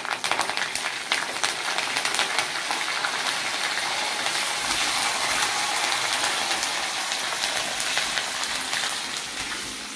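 Curry leaves hitting hot oil in a clay pot, crackling and sizzling at once with a dense spatter of pops, the green chillies, garlic and ginger frying alongside. The sizzle holds steady and eases a little near the end.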